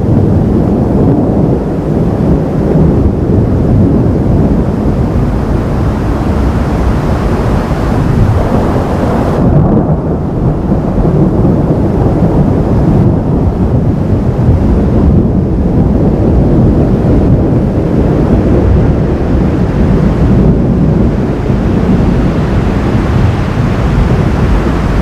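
Thunder rumbling loudly and continuously through a lightning storm, a long deep roll with no single sharp crack.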